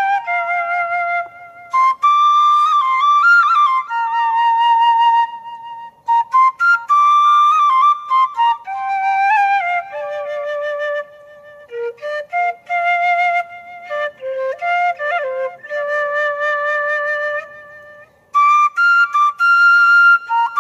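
Background music: a solo flute playing an unaccompanied melody in phrases of a few seconds with short breaks between them, the notes decorated with quick turns and slides.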